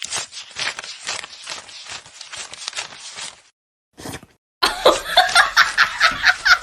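People laughing in short choppy bursts, in two separate stretches with brief silent gaps between them; the second stretch, starting about two-thirds of the way in, is louder.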